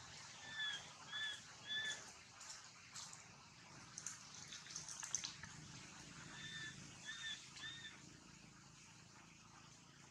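A bird calling twice, each time a phrase of three short, clear, evenly spaced notes, the first near the start and the second about six and a half seconds in. Soft scattered clicks and rustles come in between.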